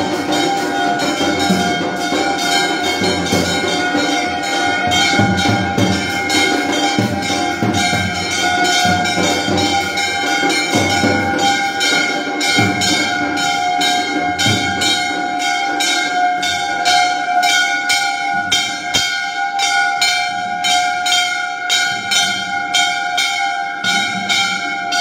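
Temple bells ringing continuously, struck rapidly and regularly at about two to three strokes a second, their ringing tones hanging steady over each other. A busier low din sits under them in the first half and thins out later.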